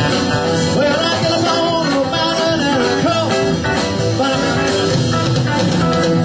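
Live rock-and-roll band music with guitar, playing steadily, with a melody line that bends in pitch.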